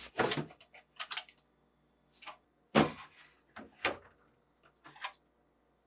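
Plastic drawer side supports being slid forward and pulled out of a refrigerator's fresh-food compartment: a scattered series of short plastic clicks and knocks, the loudest a little under three seconds in.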